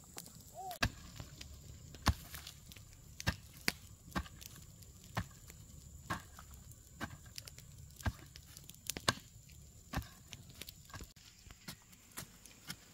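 Hand hoe chopping into dry, clumpy red earth: dull strikes at an uneven pace, roughly once a second.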